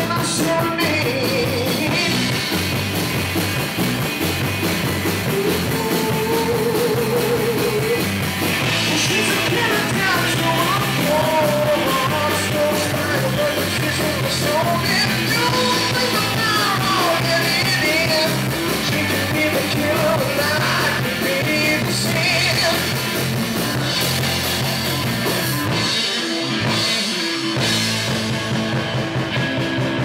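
Live rock band playing loudly, with electric guitar and bass guitar under a male lead singer's voice. The bottom end briefly drops out near the end.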